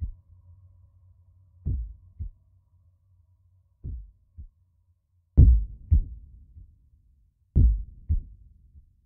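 Background music track: deep double thumps like a heartbeat, repeating about every two seconds over a faint low drone.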